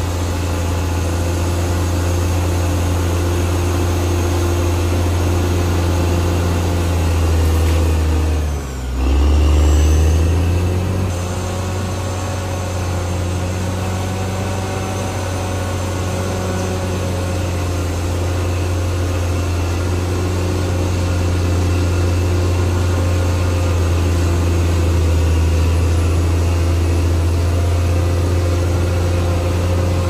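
Diesel engine of a Caterpillar D6R XL crawler bulldozer running steadily at work, a loud low hum, with a brief dip in pitch and level about nine seconds in.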